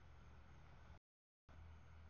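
Near silence: a faint low hum and hiss, cut off to dead silence for about half a second just past the middle.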